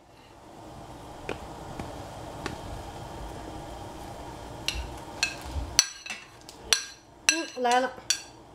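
A pot of miso soup boiling with a steady bubbling hiss, then a metal utensil clinking and knocking against the pot several times in the second half.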